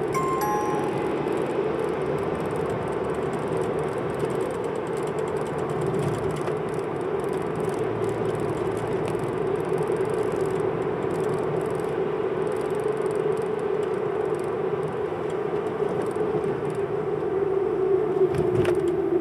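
Steady engine and road drone inside a car cabin while driving. Just after the start there is a short electronic chime of a few clear tones.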